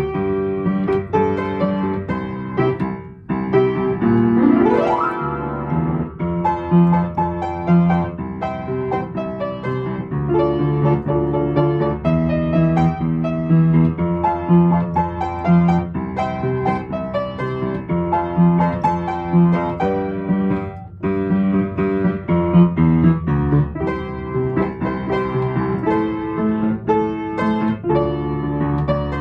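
Instrumental music played on a piano-like keyboard, with a steady sustained bass beneath the melody; a short rising sweep about five seconds in.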